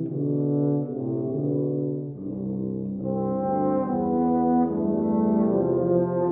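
A brass quartet of two euphoniums and two tubas plays sustained chords, moving from chord to chord every second or so. The sound grows fuller and louder about three seconds in.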